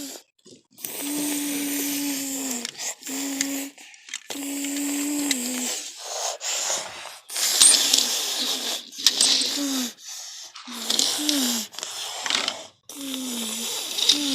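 A person's voice making race-car engine noises for toy cars, a series of held buzzing hums, each lasting about a second and several dropping in pitch at the end. Scraping and rolling noise from the toy cars being pushed along a surface runs underneath, with a few light clicks.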